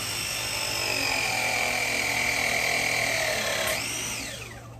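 Battery-powered press tool crimping a 3/4-inch ProPress fitting. The motor whines, and its pitch sags as the jaws close under load. Near the end it briefly jumps up in pitch and winds down as the press cycle completes.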